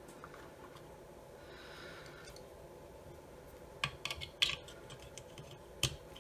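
Light clicks and taps of small plastic parts being handled while reassembling an inspection camera: a quick cluster about four seconds in and one sharp click near the end.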